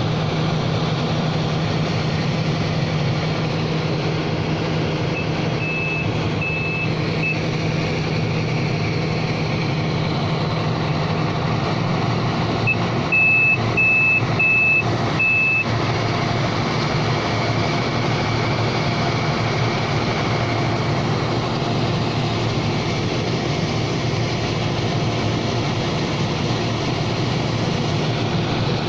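HGS piling machine's engine running steadily, with two short runs of high, evenly spaced warning beeps: about four beeps some five seconds in, and about five more around thirteen seconds in.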